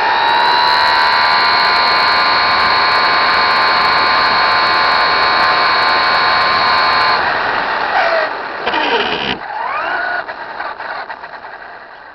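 Traxxas Slash 4x4 RC truck's electric motor and drivetrain whining steadily at speed. About eight seconds in the whine falls in pitch as the truck slows, and the sound fades away as it comes to a stop.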